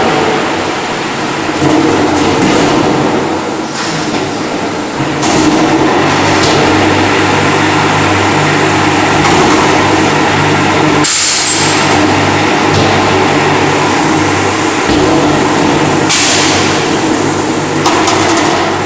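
Airless paint sprayer running with a steady mechanical hum, with short loud hisses about 5, 11 and 16 seconds in.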